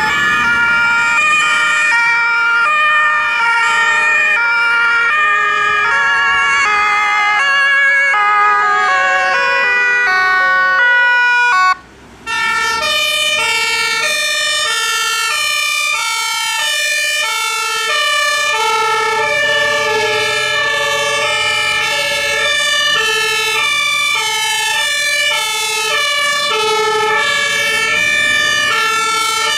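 Several emergency-vehicle two-tone sirens (German Martinshorn) sounding at once, each stepping between a high and a low note, overlapping out of step. The sound drops out for a moment about twelve seconds in, then resumes.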